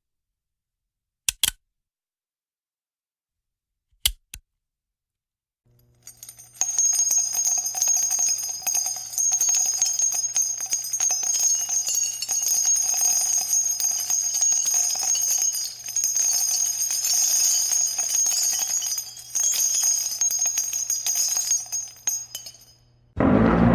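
Small bells or metal pieces jingling, shaken continuously for about sixteen seconds, after two quick double clicks. A louder, deeper sound starts just before the end.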